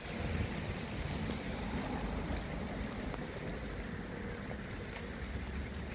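Heavy rain falling, a steady hiss with a few sharper drop ticks, over a low rumble of wind buffeting the microphone.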